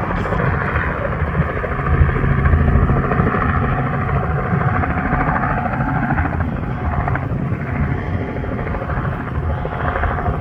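Robinson R44 helicopter running steadily, its main rotor giving a low, even chop over the drone of its six-cylinder Lycoming piston engine.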